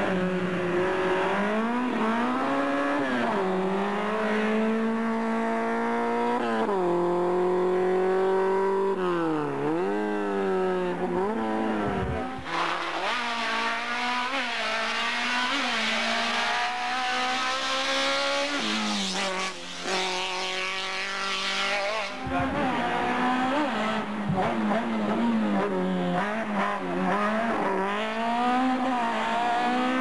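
Small racing hatchbacks' engines revving hard through a cone slalom, the note climbing and dropping again and again as the drivers lift, brake and accelerate. Tyres squeal through the turns, loudest around the middle.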